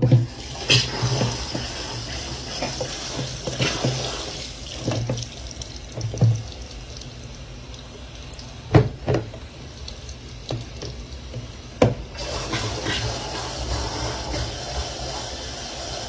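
Bathroom sink faucet running hot water into a plastic jug, with several sharp knocks as the jug is handled against the sink. The water sound turns brighter about three-quarters of the way through as the jug fills.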